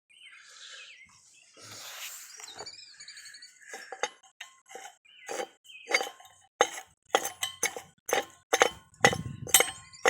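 Metal clinking and tapping as an orifice tube is worked forward inside a homemade propane burner pipe. The first few seconds are quieter fumbling; then a run of sharp metallic clicks with a slight ring grows faster and louder toward the end.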